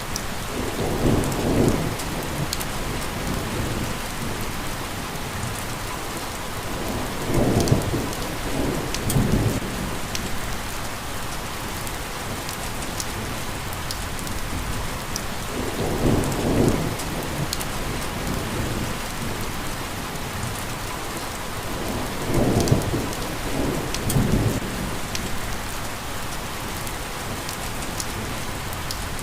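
Steady heavy rain hissing, with scattered individual drops ticking. Four low rumbles swell up and fade out, roughly every seven seconds.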